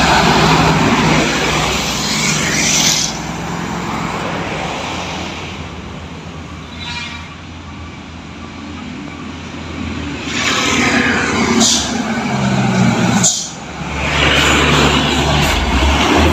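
Heavy diesel trucks passing close by on the highway, their engine and tyre noise swelling and fading away twice. Two short hisses come about a second and a half apart, and near the end a truck's engine runs close with a steady low hum.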